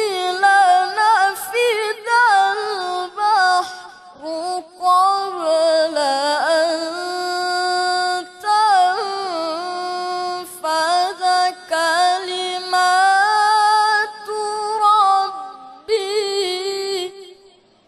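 Solo male Quran reciter in melodic tilawah: a high, held voice with rapid ornamented turns and vibrato, sung in long phrases broken by brief pauses for breath. It stops shortly before the end.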